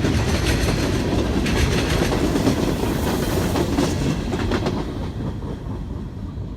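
Empty steel gondola cars of a freight train rolling past, wheels clicking over rail joints with a steady rumble and rattle. The sound fades away near the end.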